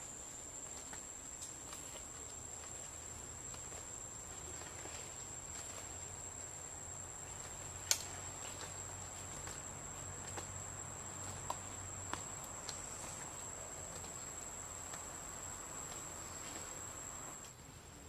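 Steady high-pitched drone of insects in the forest, one unchanging tone, with a few light clicks scattered through it, the sharpest about eight seconds in.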